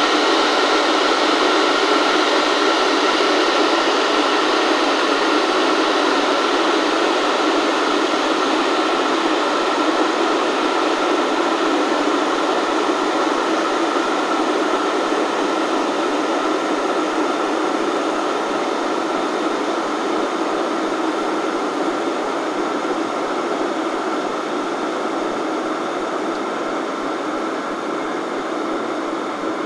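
Electric kettle heating water: a steady rushing, hissing rumble of water as it heats toward the boil. It slowly grows quieter and less hissy over the stretch.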